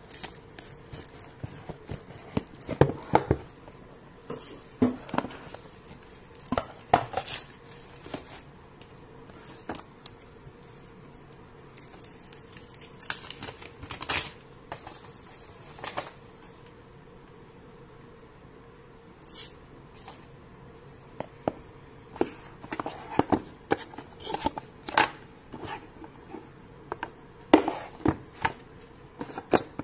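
Hands handling a smartphone's cardboard retail box and its paper inserts: scattered taps, scrapes and rustles as the lid comes off and the contents are lifted out.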